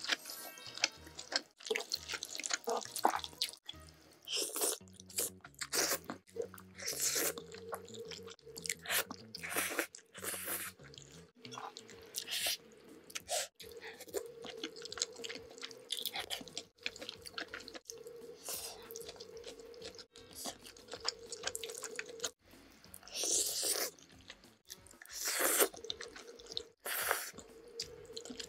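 Close-miked eating of creamy pasta: wet, irregular chewing and noodle-slurping sounds, with light background music underneath.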